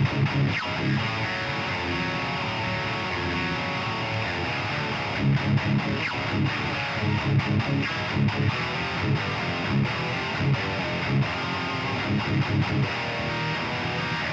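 Electric guitar through a high-gain amp playing metal riffs: bursts of low palm-muted chugging alternate with held distorted chords.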